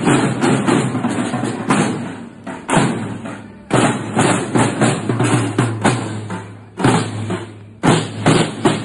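A group of street drummers playing marching snare drums in a steady march beat, with a strong accented hit about once a second and quicker strokes between.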